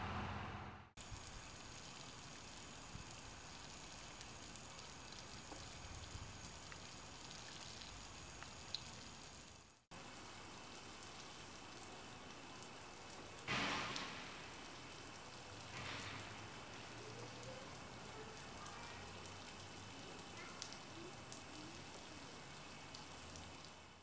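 Steady rain falling on paving stones: a fine, even hiss of drops, with a louder rush of rain about halfway through. A low steady hum stops about a second in.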